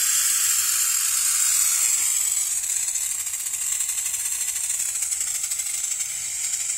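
Black Flag aerosol insecticide can spraying in one long continuous burst: a steady, loud hiss that eases slightly toward the end.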